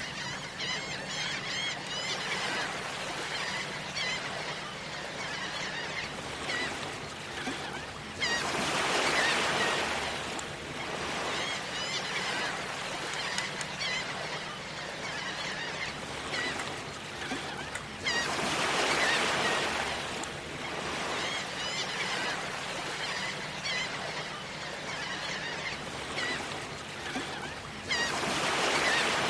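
Beach ambience recording: waves breaking and washing in about every ten seconds, under the repeated chattering calls of shorebirds.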